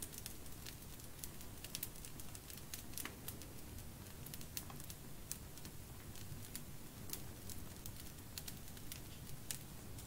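Small wood fire crackling in a stone fireplace: irregular sharp snaps and pops, several a second at times, over a faint low rumble.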